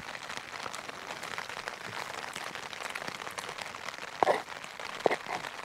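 Light rain pattering steadily on the tarp shelter's fabric, with two brief, louder sounds about four and five seconds in.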